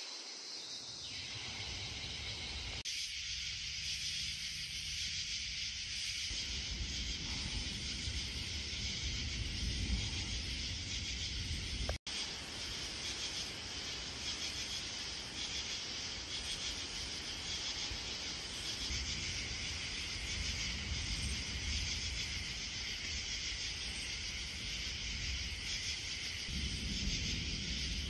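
Night-time forest ambience: a steady, high-pitched chorus of night insects over a low rumble that swells and fades, with the sound cutting out for an instant about twelve seconds in.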